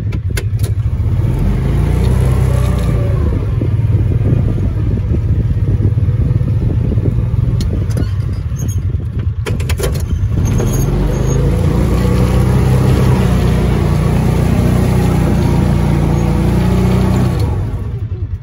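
A utility vehicle's engine runs under load while the vehicle is driven through mud, its pitch rising and falling with the throttle. A few sharp knocks come about halfway through as it goes over rough ground.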